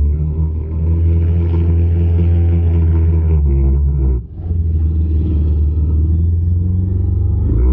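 ATV engine running steadily with a loud, low drone, dipping briefly a little over four seconds in before picking up again.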